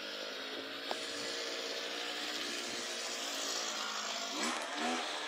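Petrol brush cutter running steadily, a continuous engine drone with a hiss; a single click about a second in.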